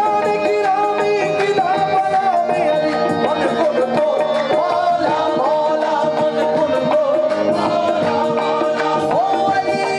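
Live qawwali: harmoniums holding chords under a male singer's sliding, ornamented vocal line, with tabla drumming.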